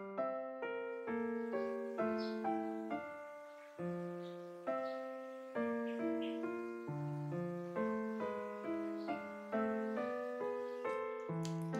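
Background piano music: a gentle melody with notes struck about twice a second.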